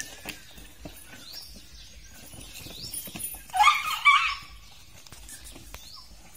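Young elephant giving a happy squeak: a short, high, rising squeak that peaks twice in quick succession about three and a half seconds in.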